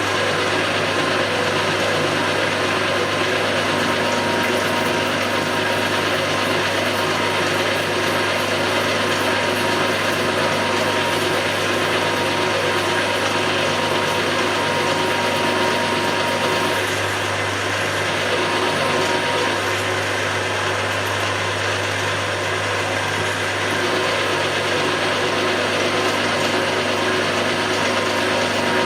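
Milling machine running with its geared drive, drilling a 7/16-inch hole with a twist drill fed in steadily; a steady hum and gear whine with several held tones, dipping slightly in loudness a little past halfway.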